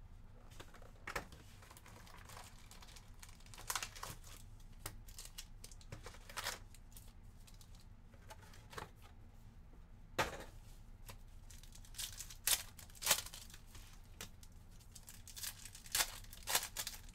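Handling of a cardboard trading-card box and its foil card packs: scattered crinkles and rustles of the foil wrappers, growing busier in the second half as a foil pack is torn open near the end.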